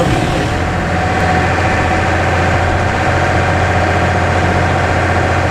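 Bus engine running steadily: an even low hum with a faint steady higher tone over it, no revving or changes.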